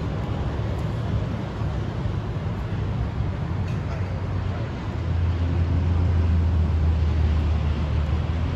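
Wind buffeting the microphone: a steady low rumble with a hiss over it, growing louder about five seconds in.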